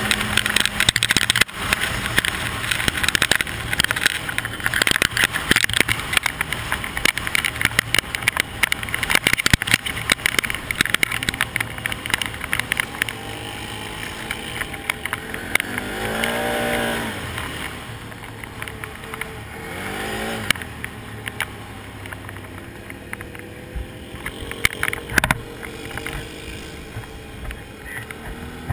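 Can-Am ATV engine running on a rough dirt track, with a constant clatter of clicks and knocks from the ride. The revs rise and fall about halfway through and again a little later, and the ride grows quieter in the second half.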